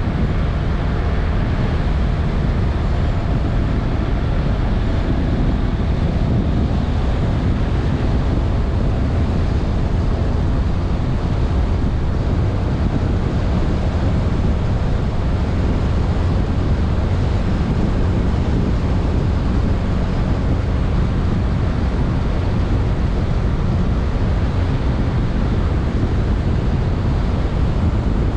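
Steady wind noise on the microphone of a moving Honda Vision 110cc scooter, with the engine's low hum underneath.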